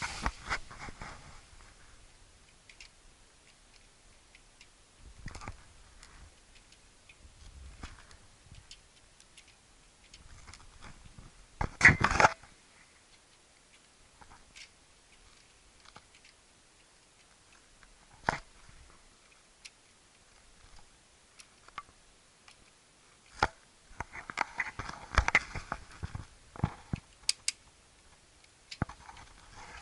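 Plastic Lego Technic parts of a built cargo plane model clicking and rattling as the model is handled and its red control levers are worked. The clicks come scattered, with a loud clatter about twelve seconds in and a dense run of clicks near the end.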